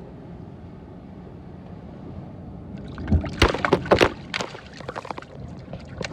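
Seawater sloshing and splashing close by, with a burst of sharp splashes about three seconds in over a low, steady rush.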